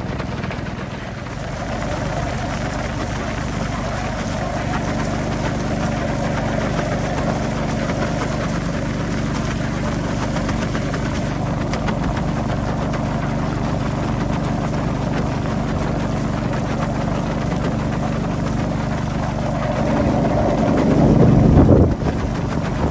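Motorboat engine running steadily under the rush of water and air as the boat travels along the river. Near the end it swells louder, then drops back suddenly.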